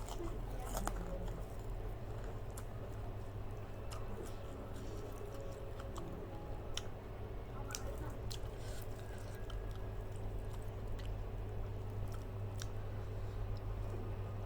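A person chewing and biting food close to the microphone, with scattered short crisp clicks, over a steady low hum.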